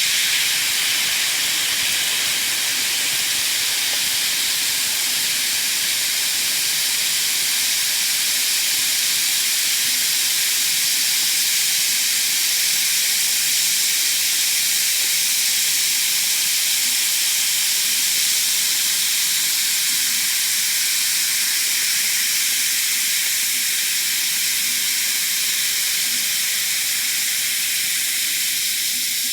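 Effervescent tablet fizzing as it dissolves in water: a steady, hissing fizz of tiny bursting bubbles that eases off slightly near the end.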